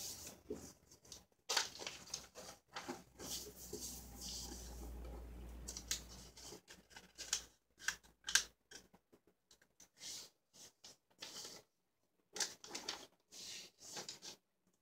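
Sheet of lined notebook paper rustling and scraping as it is folded by hand and the creases are pressed flat, in short irregular bursts.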